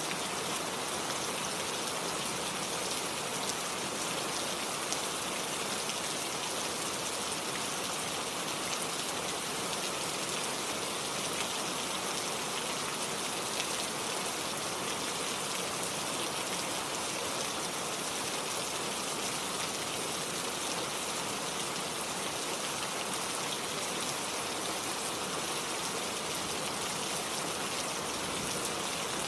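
Steady rain falling, with raindrops pattering on surfaces, mixed with the even rush of a flowing stream.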